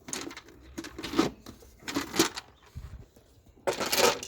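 Four short bursts of scraping and clattering handling noise as a plastic cover is taken off in the engine bay.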